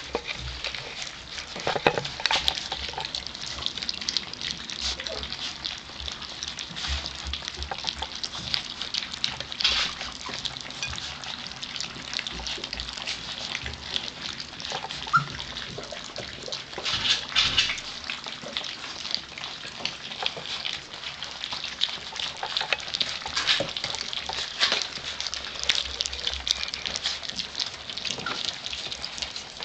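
A litter of four-week-old Gordon Setter puppies eating soft mash from a plate: many small tongues lapping and mouths smacking, a steady wet clicking and slurping.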